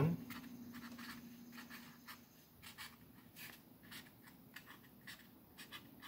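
Felt-tip permanent marker writing block letters on corrugated cardboard: quiet, quick, irregular scratchy strokes.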